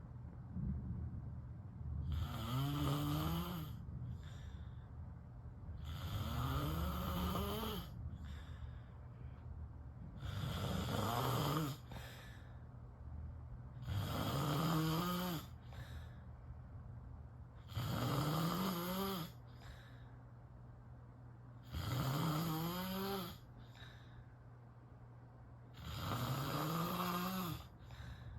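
A sleeping person snoring in a steady rhythm: seven long snores about four seconds apart, each rising in pitch.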